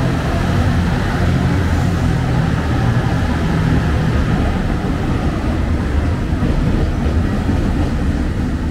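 JR Shikoku 2700 series diesel multiple unit running past, its diesel engines giving a steady low drone over the rolling noise of the train.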